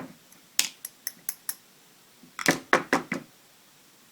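Small sharp metal clicks of lock pins and parts being tipped out of a Medeco padlock cylinder into a pillbox: a handful of single clicks in the first second and a half, then a quicker, louder cluster around the middle.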